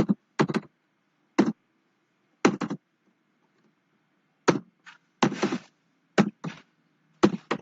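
Keys being pressed on a computer keyboard: separate sharp taps and short runs of taps with pauses between, as a line of Arduino code is typed.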